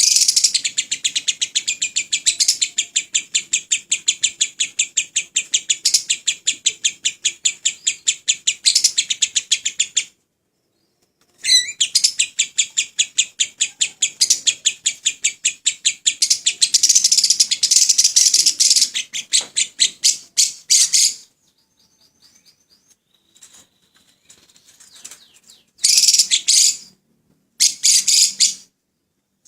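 Lovebird singing long runs of rapid, evenly repeated high chirps, each run lasting about ten seconds with a short break between, then a few faint calls and two short bursts near the end.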